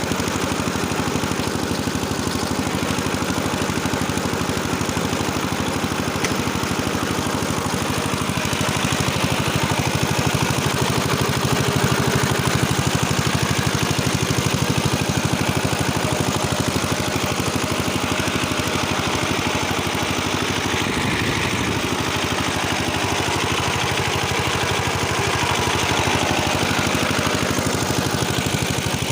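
Engine of a tractor-driven rotary tiller running steadily while tilling soil, swelling a little louder for a few seconds about a third of the way in and again near the end.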